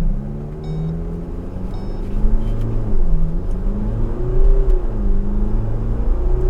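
MG Gloster's twin-turbo diesel engine under hard acceleration from a standstill in Sport mode, its pitch climbing and dropping back with each upshift of the 8-speed ZF automatic, about every two seconds, as it works up through the lower gears.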